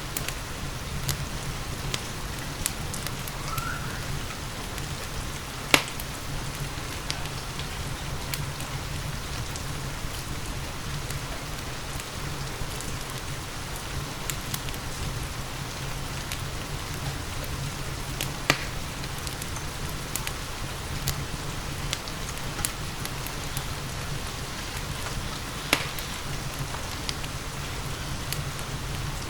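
Steady rain falling together with a wood fire crackling, with small scattered crackles throughout and three loud sharp pops spread across the stretch.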